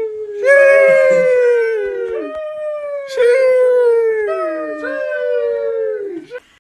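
A dog howling: a run of long, drawn-out howls, each holding a pitch and then falling away at the end, some overlapping the next.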